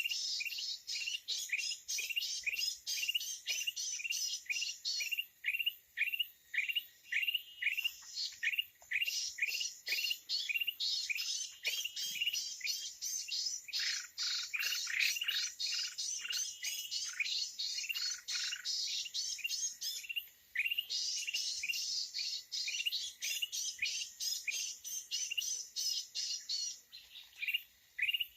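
Red-eyed bulbul calls: a fast, unbroken run of short rising chirps, about two or three a second, under a busy high twittering, with a brief pause about two-thirds of the way through.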